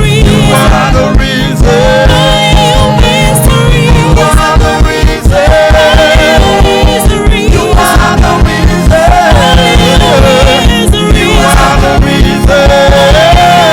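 Gospel worship band playing an up-tempo number with a fast, steady beat, a singer holding long wavering notes over it.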